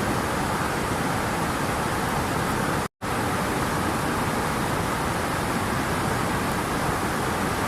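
Waterfall, a steady rush of falling water, cut off completely for a split second about three seconds in.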